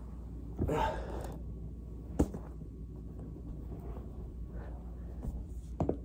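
Back joints cracking as the spine is rolled over a foam roller: one sharp pop about two seconds in, the loudest sound, with a couple of smaller clicks near the end. A loud voiced breath out comes just before the pop.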